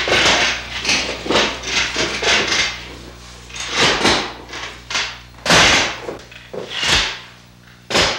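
A run of irregular scraping and rustling strokes with a few louder knocks near the end, over a steady low electrical hum.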